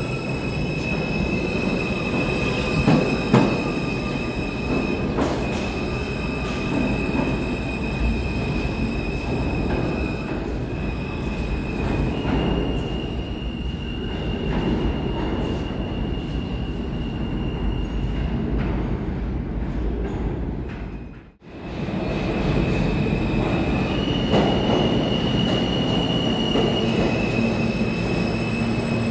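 New York City Subway G train of R160 cars running on the IND Crosstown Line: heavy rumble with high, steady wheel squeal as one train pulls out of the station. After a sudden break about two-thirds of the way through, another train runs in, also rumbling and squealing.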